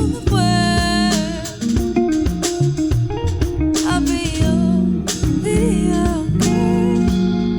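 Live R&B band playing an instrumental passage: a guitar carries a lead line of sustained, bent notes over bass guitar and a drum kit.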